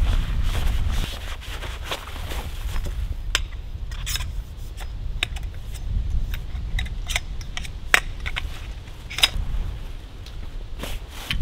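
Wind rumbling on the microphone, strongest in the first second, with canvas rustling and half a dozen sharp metallic clinks as metal poles are handled and packed.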